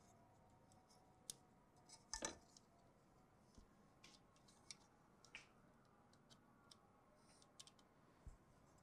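Faint, scattered small clicks and clinks of a small screwdriver and wire ends being worked into the terminal blocks of a junction box's circuit board, with the loudest cluster about two seconds in.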